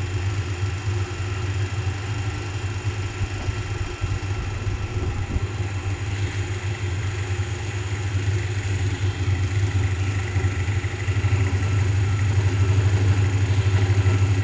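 A DC motor driving a separately excited DC generator, running steadily at about 1500 rpm with a strong, low hum. The hum grows louder over the last few seconds as the generator's field current is raised and its output voltage builds up.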